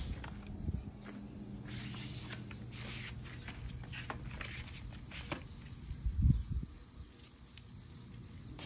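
Insects chirping outdoors, a steady high-pitched pulsing, with a few light clicks and one short low thump about six seconds in.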